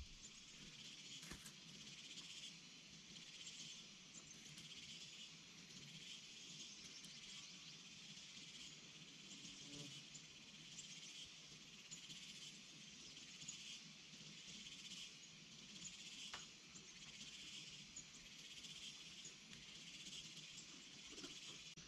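Faint, steady chorus of insects: a high, hissing buzz that swells and fades every couple of seconds, with one or two faint clicks.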